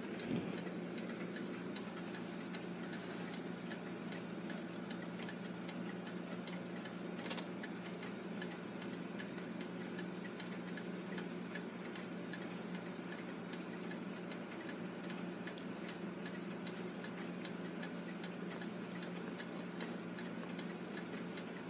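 Mechanical clock ticking steadily and evenly, over a low steady hum. A brief louder clatter of small metal parts comes about seven seconds in.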